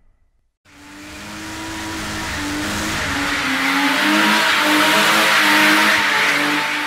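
Race car engine revving with tyre noise, coming in after a brief silence and growing steadily louder over several seconds.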